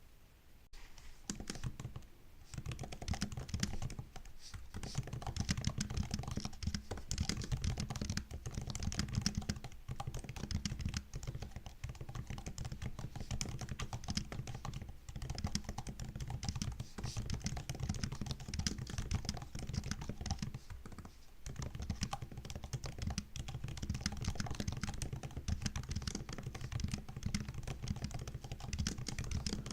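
Steady, fast typing on a MacBook laptop keyboard, a dense run of quick key clicks that starts about a second in and pauses briefly a few times.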